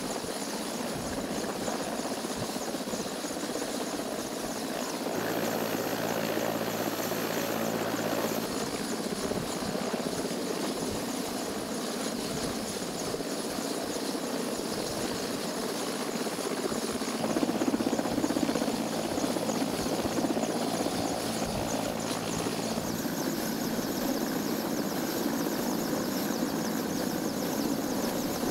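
Mi-17 helicopter running, its turbine engines and rotor making a steady rushing drone that grows slightly louder about two thirds of the way through.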